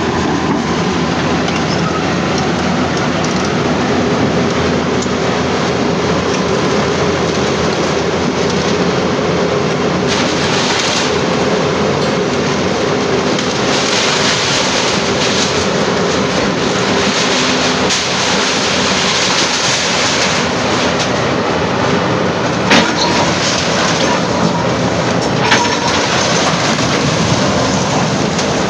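Heavy demolition machinery running with a continuous rattling clatter, and two sharp knocks near the end.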